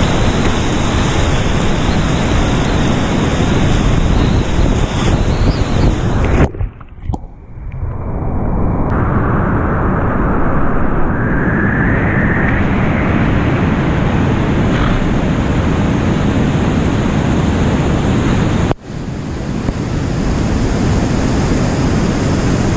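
Whitewater rapids rushing loudly around a kayak as it runs them. About a third of the way through the sound drops out sharply for a couple of seconds and comes back dull and muffled, then turns full and bright again suddenly near the end.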